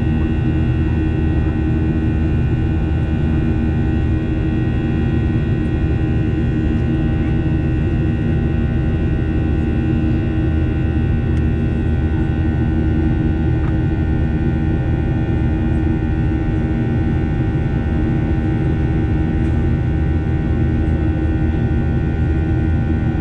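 Steady cabin noise inside a Boeing 737-800 with its CFM56 jet engines running at a constant setting: a deep rumble with a continuous hum and several thin steady whining tones, unchanging throughout.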